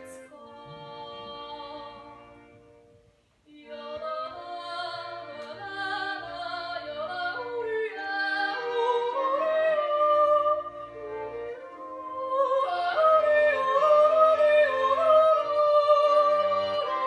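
A woman singing long held notes with vibrato over instrumental accompaniment. The music breaks off briefly about three seconds in, then resumes and builds.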